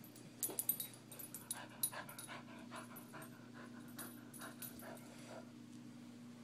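Beagle panting in quick, even breaths while hunting around, with a few sharp clicks about half a second in.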